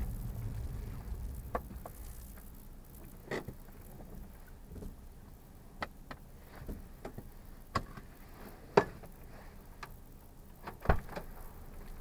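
Low rumble of a car's running gear fading as the car slows to a halt. Then quiet cabin noise with scattered, irregular sharp clicks and taps, the loudest two near the end.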